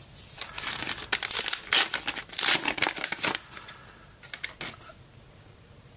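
The wrapper of a trading-card pack crinkling as it is handled, dense for about three and a half seconds, then a few lighter rustles and ticks that die away.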